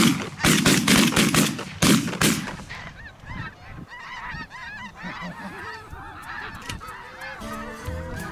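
A rapid volley of shotgun shots from several hunters, about seven blasts in the first two seconds or so, among a flock of honking geese. The geese keep honking after the shooting, and music comes in near the end.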